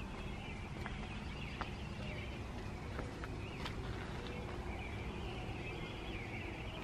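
Outdoor ambience: a steady low rumble with faint bird chirping and a few light clicks.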